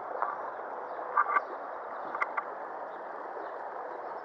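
Shallow river running steadily over a gravel riffle, with a few short sharp clicks near the start and around one and two seconds in.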